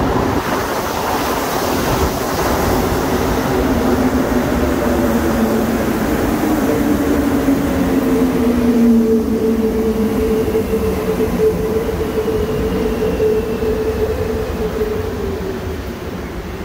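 Montreal Metro AZUR rubber-tyred train pulling into the station: its motors whine in several tones that fall in pitch as it brakes, over a steady rumble from the running gear. It grows quieter near the end as it slows.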